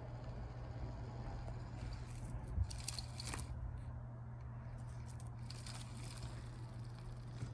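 Kittens playing: short bouts of scratching and scuffling with a single soft thump about two and a half seconds in, over a steady low hum.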